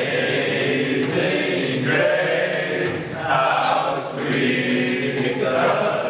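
A choir singing in sustained chords, the harmony shifting every second or two.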